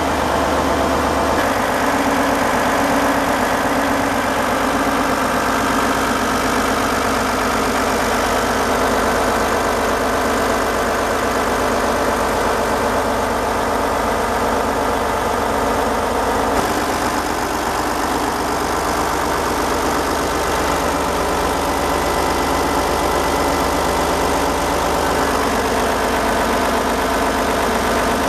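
A fishing boat's inboard engine idling steadily, heard up close in the engine room. The sound shifts abruptly in tone a few times.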